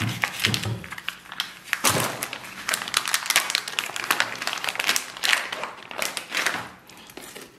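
Plastic pouch of pickled mustard greens crinkling and rustling in quick, irregular crackles as it is slit open with a cleaver and squeezed out by hand. A few knocks of the cleaver on the wooden chopping block come near the start.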